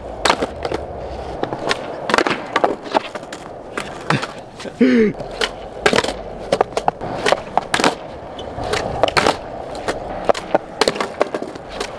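Skateboard wheels rolling on concrete, with many sharp clacks from the board's tail, wheels and trucks hitting the ground during flat-ground flip-trick attempts.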